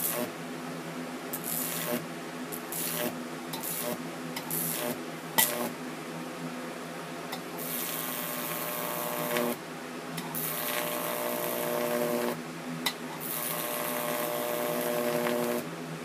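High-voltage arc from a microwave oven transformer, buzzing and hissing as it is drawn off the terminal with a grounded stick. It swells and drops out in stretches over a steady transformer hum, with a couple of sharp snaps, and cuts off shortly before the end.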